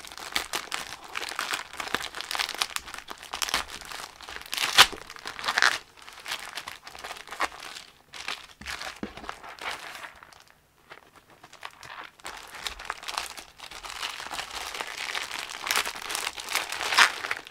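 Polythene courier mailer bag being torn open and crumpled by hand: irregular crinkling and tearing of plastic. The crackles are loudest about five seconds in and near the end, with a quieter spell in the middle.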